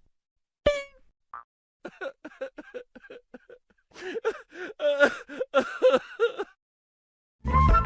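A short cartoon 'teng' ring sound effect about a second in, followed by a comic crying sound effect: several seconds of rhythmic sobbing voice pulses. Near the end a loud, low burst starts.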